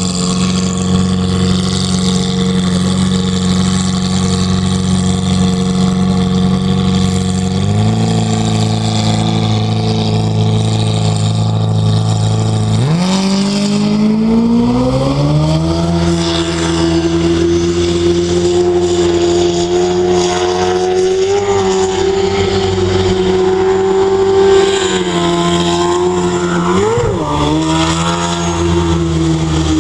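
Quad-rotor turbocharged rotary engine of a jet sprint boat idling steadily, then revving up sharply about 13 seconds in and holding high revs, with a brief dip and rise near the end.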